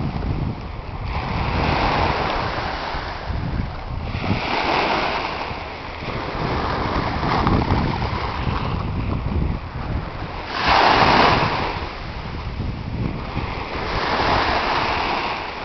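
Small waves washing onto the beach, swelling and fading every few seconds, with the loudest swell about two-thirds of the way through. Wind rumbles on the microphone throughout.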